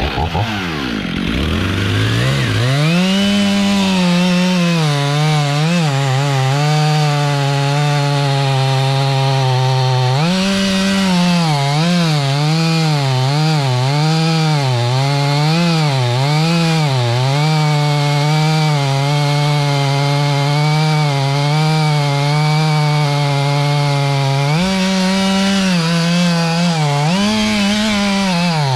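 Chainsaw running at high revs while cutting wood. It revs up over the first couple of seconds, then its engine note keeps wavering up and down as the cut loads it, rising higher for a moment near the middle and again near the end.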